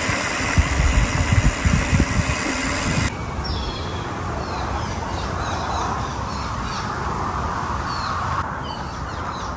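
Wind rush and rolling noise of a mountain bike coasting downhill on a gravel road, cutting off about three seconds in. After that, quieter outdoor ambience with birds chirping repeatedly.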